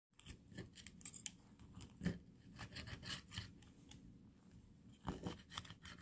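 Kitchen scissors snipping through steamed pork and pea shoots on a plate: a run of faint, irregular cuts, with a louder snip about two seconds in and a few more near the end.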